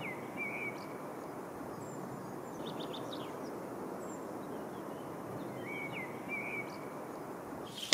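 Forest ambience: a steady hiss with birds calling over it. One bird gives a short two-part call at the start and repeats it about six seconds in, and a few brief high chirps come around the middle.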